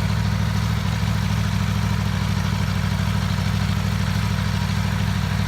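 Aprilia Tuono V4 1100 RR's V4 engine idling steadily, with no revving.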